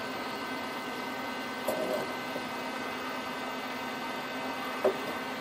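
Steady electrical hum with several fixed tones, and two faint brief handling sounds, one about two seconds in and one near the end.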